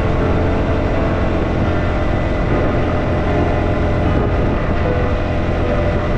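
Motorcycle riding at a steady cruise on the highway: a continuous engine drone with road noise, holding even throughout.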